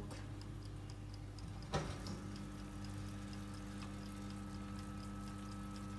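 Electric oven running with a steady hum, with faint regular ticking over it. A single sharp knock sounds a little under two seconds in.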